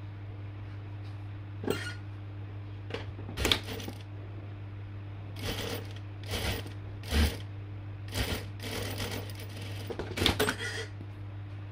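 Irregular short clicks and rustles of fabric and sewing tools being handled, over a steady low hum.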